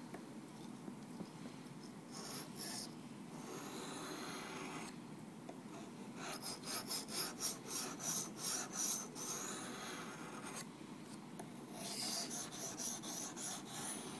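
Steel knife blade scraping back and forth across a wet Shapton Glass Stone waterstone in runs of quick strokes, with short pauses between the runs: a crunchy rasp. The stone is biting aggressively and taking metal off the blade.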